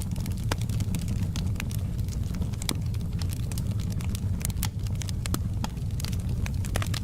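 Wood fire burning in a fireplace: many small crackles and pops scattered irregularly over a steady low rumble of the flames.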